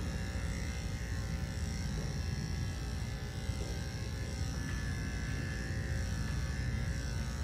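Electric pet hair clipper running steadily with an even buzz while trimming a long-haired chihuahua's coat.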